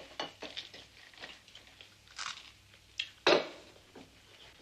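Cutlery clinking and scraping on plates and dishes during a meal: a scatter of light clicks, with one louder knock about three seconds in.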